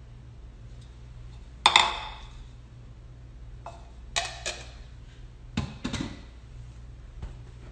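A spoon clinks sharply against a glass bowl, ringing briefly, as the last of the tomato topping is scraped out. About two seconds later come two light clicks, then two duller thuds of dishes being handled and set down.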